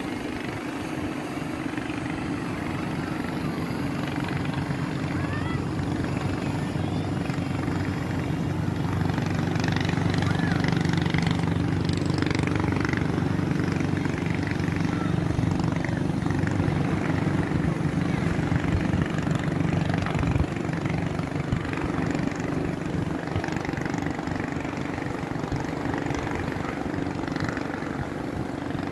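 A steady engine drone passing: it builds through the first half and fades again after about twenty seconds.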